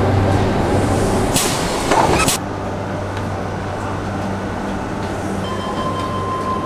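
Steady low rumble with a hum, broken by two sharp clicks about one and a half and two and a quarter seconds in, after which it drops a little in level. A steady high tone enters about five and a half seconds in.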